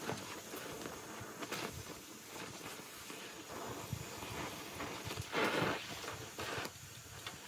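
Oxy-acetylene torch flame hissing steadily on steel, with a louder rush of hiss about five and a half seconds in.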